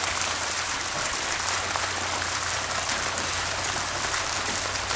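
Steady splashing and running water at a trout pond, an even hiss with fine patter that holds at one level throughout.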